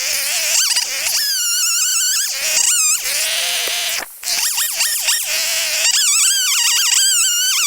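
Titan TTL759CHN two-stroke chainsaw running hard through cuts: a high-pitched engine note that wavers rapidly up and down, with a short noisy stretch and a brief drop about four seconds in.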